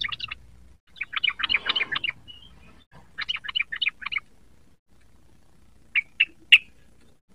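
Yellow-vented bulbul singing in quick, chattering bursts of rapid notes, three phrases in the first four seconds, then a few single sharp notes near the end.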